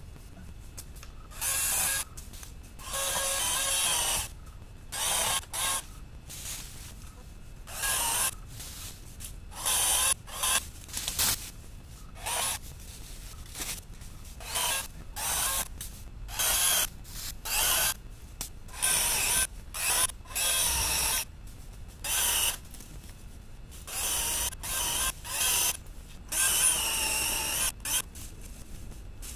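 Footsteps and shuffling through dry fallen leaves and brush: irregular short crunching, rustling bursts, some lasting about a second.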